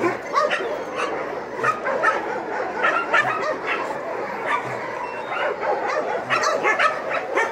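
A chorus of many dogs barking and yipping at once, short overlapping barks without a break.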